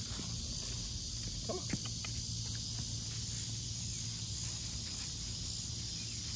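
Steady outdoor insect chirring in the background, with a low steady hum underneath. A few faint light clicks about a second and a half in.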